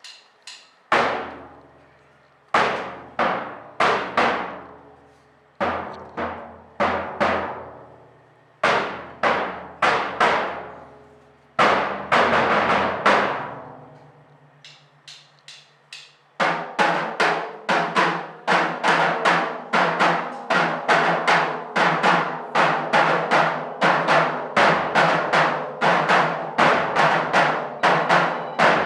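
Drums played as an ensemble: spaced phrases of loud strikes that each ring out and fade, then, about halfway through, a steady fast beat of roughly three strikes a second.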